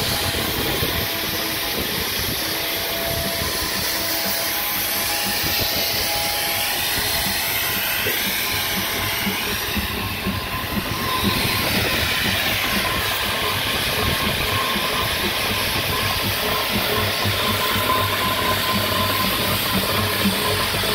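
Fowler Class Z7 steam engine running under steam: a steady hiss of steam over a low, regular beat of the engine's motion. It gets a little louder about halfway through.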